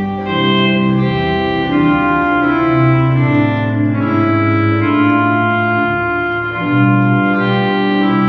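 Sampled pipe organ of Hereford Cathedral played through Hauptwerk: sustained chords on 8-foot flutes over a 16-foot pedal diapason bass, with a tuba and tromba reed melody on top. The chords change about once a second.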